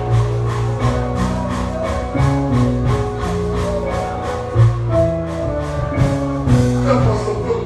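Instrumental church music: held notes over a steady percussion beat, with no voice.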